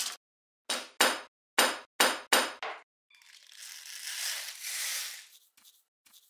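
Plastic camcorder housing snapping apart, a quick run of sharp cracks in the first three seconds. This is followed by a hissing rush that swells and fades away about five seconds in.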